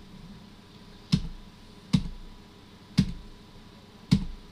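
Four single computer-keyboard keystrokes, sharp clicks about a second apart: the Enter key accepting default answers at successive OpenBSD installer prompts.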